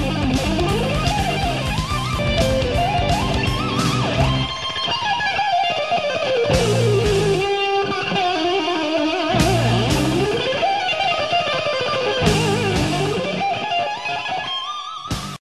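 Background rock music led by electric guitar playing a winding melody over bass and drums. The rhythm section drops out for stretches and returns, and the music cuts off abruptly near the end.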